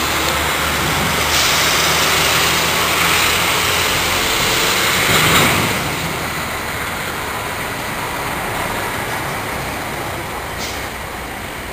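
Road traffic passing close by: a heavy vehicle's engine hum over steady traffic noise, ending after a peak about halfway through and leaving a quieter, steady traffic rumble.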